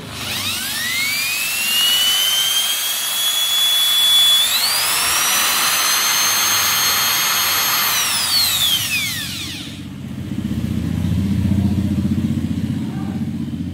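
Bosch GSB 550 corded 550-watt impact drill run with no load. Its motor whine climbs as it spins up, steps up to a higher speed about four seconds in, holds, then winds down and stops about ten seconds in. A low rumbling sound fills the last few seconds.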